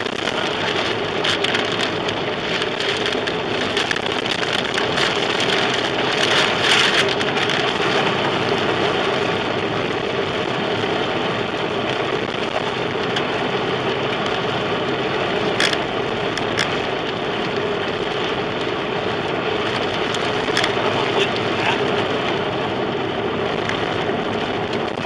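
Violent tornado winds and rain buffeting a moving car, heard from inside the cabin as a steady, dense rush of noise. A few sharp knocks about two-thirds of the way through, like debris striking the car.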